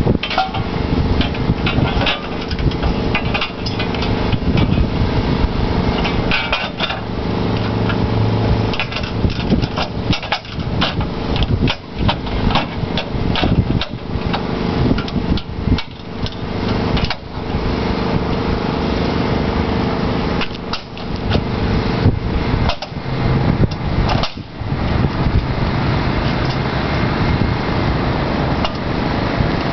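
Steel parts of a 700 lb-capacity truck receiver crane clanking and knocking as the boom and mast are fitted together, in many irregular knocks over a steady hum.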